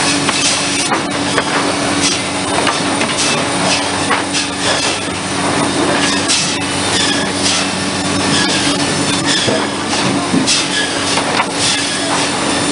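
Cedar shake mill machinery running: a steady mechanical hum under a constant clatter of clicks and knocks from wood and metal.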